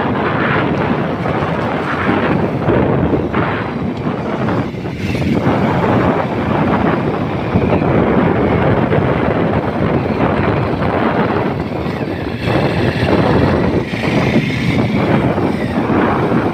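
Wind buffeting the microphone over the steady running noise of a vehicle travelling along a rough dirt road, with a few brief dips in loudness.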